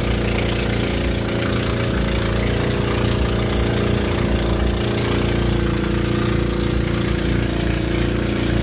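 Motorized outrigger boat (bangka) engine running steadily while under way, a constant drone over a steady rush of water along the hull.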